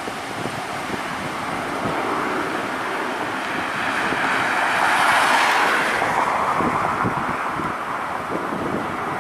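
Jet airliner engine noise swelling to a peak about halfway through and then fading, with wind buffeting the microphone throughout.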